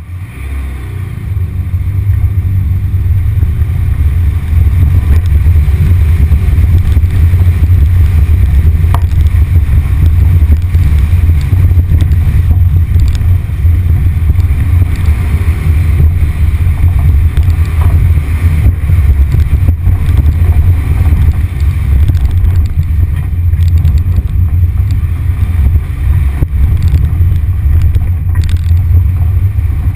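A 1974 VW Beetle's 1600cc air-cooled flat-four engine pulling hard under load up a muddy climb, building over the first two seconds and then running loud and steady. A few brief knocks sound here and there.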